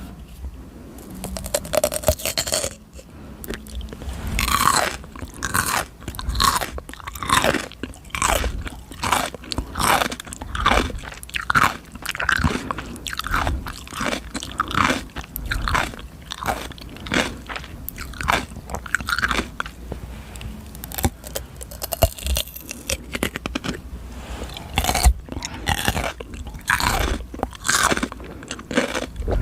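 Close-miked chewing of raw cucumber: a steady run of wet, crisp crunches, about one to two bites or chews a second.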